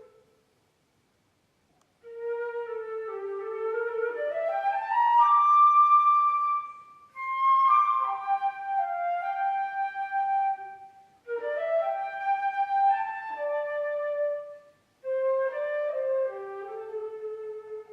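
Solo flute playing unaccompanied: after about two seconds of silence it starts a run of rising phrases that climb to a loud high note, then carries on in shorter phrases broken by brief pauses for breath.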